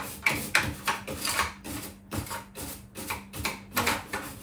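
Repeated plastic clicks and scraping, about three a second, from hands working at the capsule holder of a capsule coffee machine. The machine is being cleaned of spilled coffee that kept it from starting. A faint steady low hum runs underneath.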